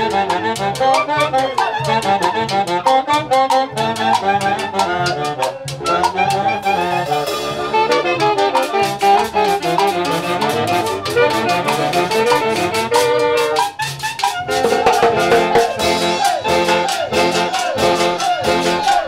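Festival orchestra playing lively dance music, with horns carrying the melody over a steady drum beat. About three-quarters of the way through, the horns come in with a new phrase.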